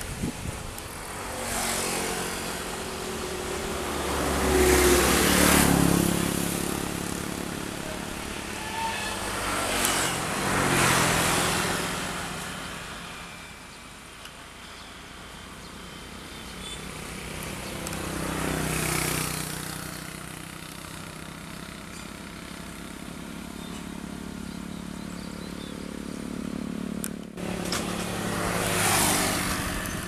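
Crawler combine harvester's diesel engine running steadily. A broad rush of noise swells and fades about four times over it.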